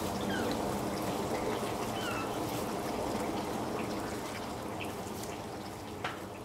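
Bull elk grazing close by: grass tearing and crunchy chewing as a run of small clicks over a steady rushing background, with a few short high chirps.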